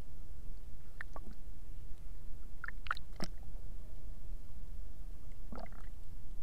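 Underwater ambience picked up by a submerged camera: a steady low rumble, broken by a few short clicks and crackly swishes from snorkelers moving in the water about a second in, around three seconds in and near the end.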